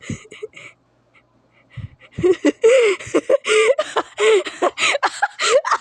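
A person laughing in a rapid run of high-pitched giggles, starting about two seconds in.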